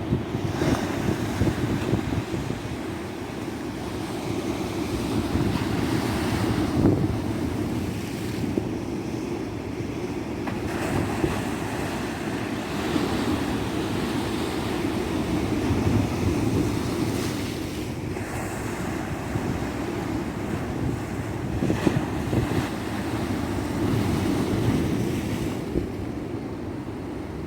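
Ocean surf breaking on a tropical beach: a continuous wash of waves that swells and eases every few seconds.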